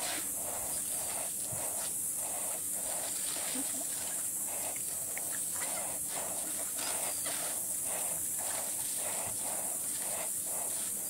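A steady high hiss, with a soft pulse about twice a second beneath it.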